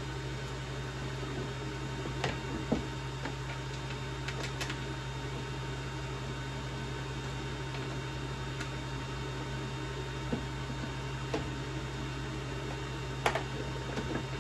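A steady low hum with scattered light clicks and taps, a few sharper ones, as the gaming chair's plastic and metal parts are handled and shifted.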